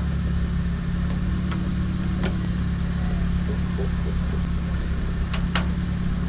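Steady low mechanical hum, with a few light clicks scattered through it.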